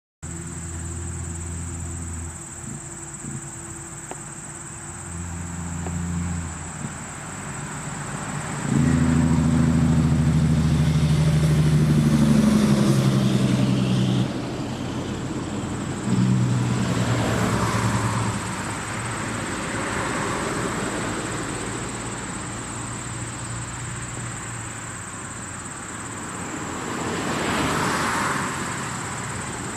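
Motor vehicle engines running close by, loudest for several seconds about a third of the way in, with road traffic passing in swells. A steady, thin, high-pitched tone sounds throughout.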